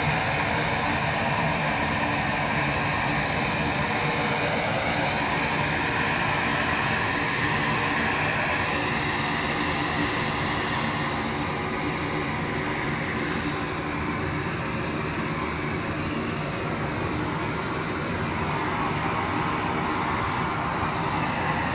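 Propane weed-burner torch burning with a steady, loud rushing roar.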